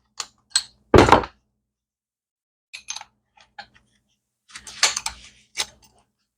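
Metal tools and parts being handled on a workbench: scattered knocks and clinks, the loudest a single heavy knock about a second in, then a cluster of clanks near the end.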